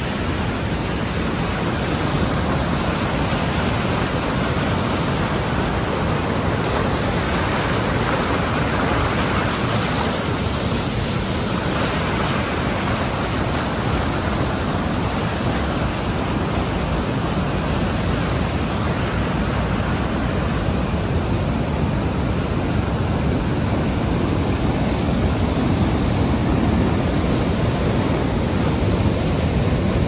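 River water pouring over the Manavgat waterfall and churning through white-water rapids: a loud, steady rushing noise with no breaks.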